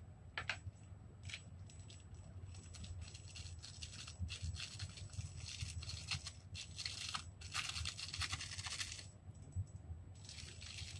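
Small foil-plastic seasoning sachets being torn open and crinkled by hand, in short crackly rips, with a longer stretch of tearing and rustling lasting about two seconds a little after the middle.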